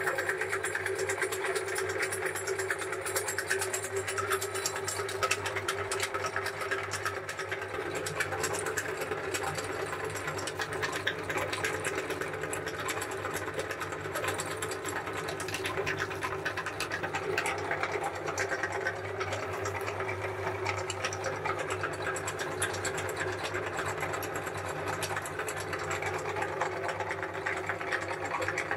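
Belt-driven cast-iron meat grinder running steadily while grinding chocolate-coated ice cream bars: a steady hum under a dense, rapid clatter.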